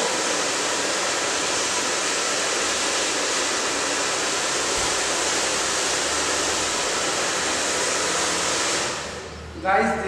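Handheld hair dryer running steadily, blowing hot air, then switched off and winding down about nine seconds in.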